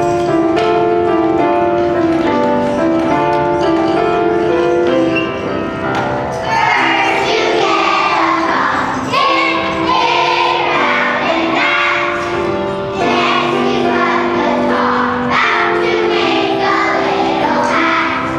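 Children's choir of first-graders singing together over a musical accompaniment. The accompaniment plays on its own at first, and the children's voices come in about six seconds in.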